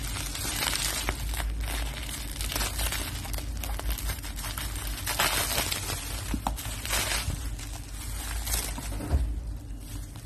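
Plastic bubble wrap crinkling and rustling as a parcel is unwrapped by hand, in irregular crackles, with a louder knock near the end.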